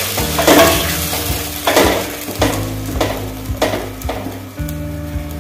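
A spatula stirring onions, garlic and capsicum frying in oil and sauce in a pan: a steady sizzle with about six scrapes of the spatula across the pan, roughly one every half second to second.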